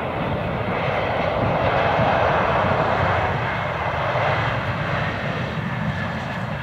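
The twin turbofan engines of an Embraer E-Jet airliner landing close by, a steady jet roar that swells to its loudest about two seconds in and then slowly eases as the jet flares over the runway.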